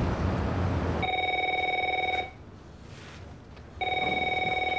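Office telephone ringing with a warbling electronic ring: two rings, each a little over a second long, starting about three seconds apart. A steady low rumble cuts off just as the first ring begins.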